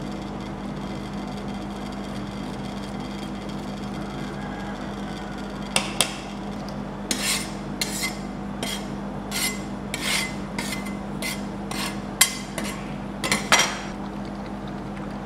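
Steel ice-cream scrapers chopping corn kernels on the steel cold plate of a rolled ice cream pan: about a dozen sharp metal clacks and short scrapes, starting about six seconds in, over a steady low hum.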